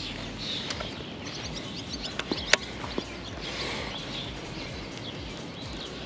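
Small birds chirping over a steady outdoor background hum, with a few sharp clicks a little past two seconds in, one of them louder than the rest.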